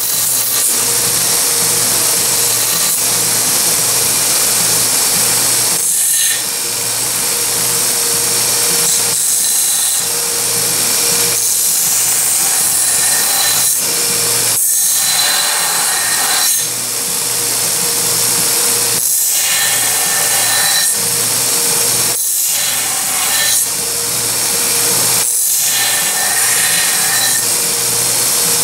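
Small narrow-belt sander running steadily while a neck knife's epoxied handle is ground against the belt in repeated passes. The grinding hiss drops out briefly every few seconds as the handle comes off the belt, over the sander's constant motor hum.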